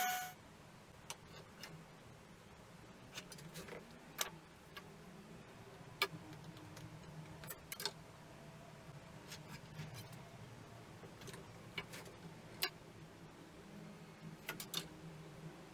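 A woodworking power tool cuts off at the very start, then faint, scattered sharp clicks and light taps, as of hand tools and pieces of timber being handled at the bench.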